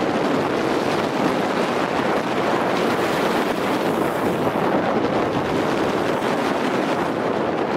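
Steady rushing noise of skiing fast downhill: wind buffeting the microphone mixed with skis sliding over groomed, packed snow.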